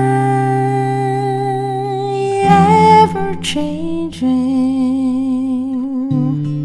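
A woman's voice sings a long held note over acoustic guitar chords. The note steps up in pitch partway through and wavers with vibrato in the second half.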